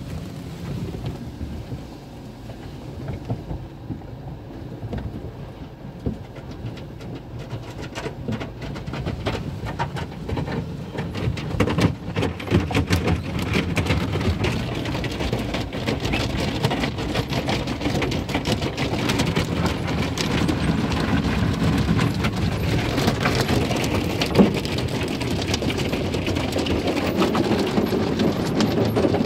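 Sonny's conveyor car wash tunnel heard from inside the car's cabin: water spray and soft-cloth strips beating and drumming on the glass and body, growing louder about ten seconds in.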